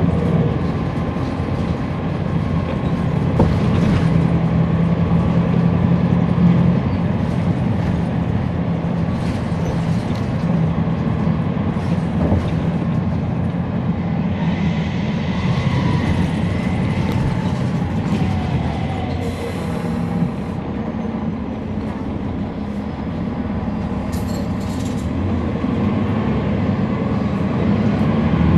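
Cabin sound of a 2011 NABI 40-SFW transit bus under way: its rear-mounted Cummins ISL9 inline-six diesel running steadily, with road and body noise. About halfway through, a louder hiss with a faint whistle rises and fades.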